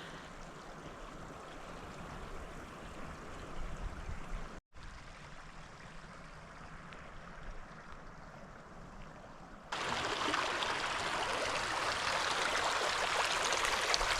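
Flowing water: a steady rushing hiss, like a stream running over rocks or through a beaver dam. It breaks off briefly about a third of the way in, then comes back louder and brighter about ten seconds in.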